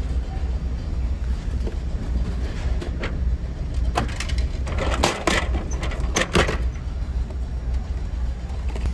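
Steady low hum of the ferry's engines and machinery, with a quick run of plastic clacks and rattles about halfway through as a vending machine's dispensing flap is opened and a lidded cup of UCC coffee is taken out.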